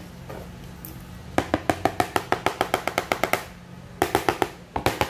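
A spoon stirring against the side of a mixing bowl with fast, even clicks, about nine a second for a couple of seconds, then again in two short runs near the end.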